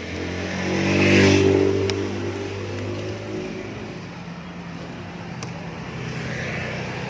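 A motor vehicle engine passing close by, loudest about a second in, then running on steadily at a lower level.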